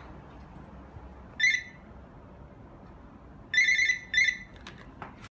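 Cordless phone handset ringing with an electronic ring tone: one short ring, then two more in quick succession near the end, followed by a couple of faint clicks before the sound cuts off suddenly.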